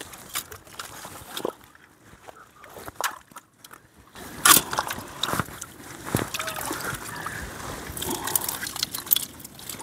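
Rubber boots wading in a shallow rocky tide pool, with sloshing and splashing of water. From about four seconds in it gets louder and busier, with scattered sharp clicks and knocks as a metal pick works among the rocks and shells.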